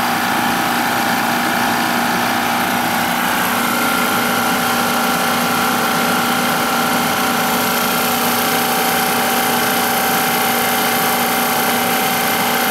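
Inficon refrigerant recovery machine running steadily, a loud even mechanical hum with a few held tones, as its compressor pulls R-22 refrigerant out of the system.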